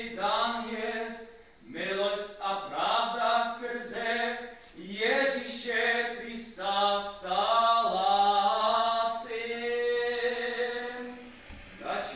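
Unaccompanied Orthodox liturgical chant, voices holding long sustained notes in several phrases with short pauses between them.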